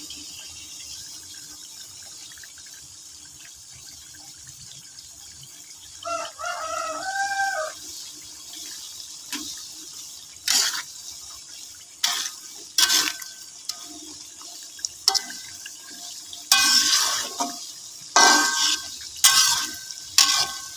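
Peeled peanuts deep-frying in hot oil in a wok, sizzling and bubbling steadily, a sign they still hold moisture and are not yet crisp. From about nine seconds in, a spatula stirs them, scraping and knocking against the wok; these strokes are the loudest sounds.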